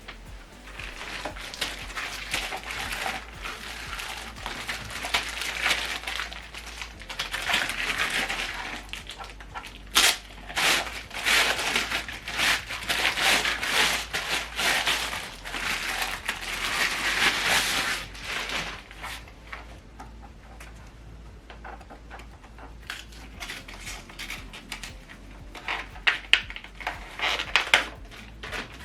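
Packaging being handled: rustling and crinkling with scattered small knocks and clicks, busiest in the first two-thirds, then quieter with a few sharper clicks near the end.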